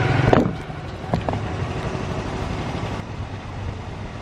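Motorbike engine idling steadily among street traffic, with a short loud sound at the start and a couple of light clicks about a second in.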